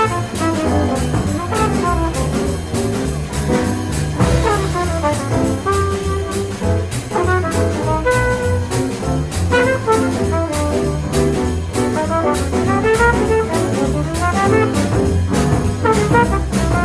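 Small jazz group recording: a trumpet plays fast improvised runs rising and falling over a regular ride-cymbal pattern and a walking bass line.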